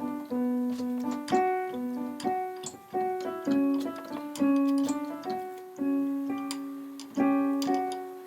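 Background piano music: a melody of single notes.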